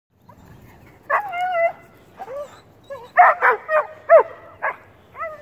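Dog barking up a tree at a squirrel: a long high whine about a second in, then a rapid string of short, high yelps and barks, many falling in pitch.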